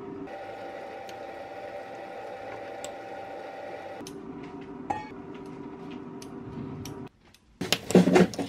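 Metal spoon tapping and scraping against a glass dessert cup as thick yogurt is spooned and stirred: a few light clicks at first, then a quick run of louder clinks near the end. A steady low hum of room noise runs underneath.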